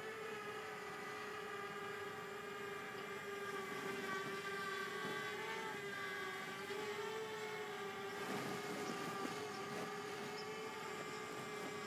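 Simtoo Fairy quadcopter drone in flight, its propellers giving a steady buzzing hum that wavers slightly in pitch.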